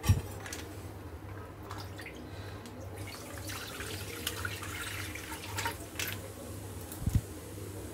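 Full-cream milk pouring steadily from a plastic pouch into a kadhai, with the pouch now and then crackling as the hand squeezes it.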